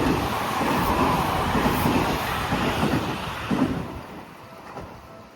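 Seibu 6000 series electric commuter train running past at close range, a steady rush of wheel and rail noise that dies away about four seconds in.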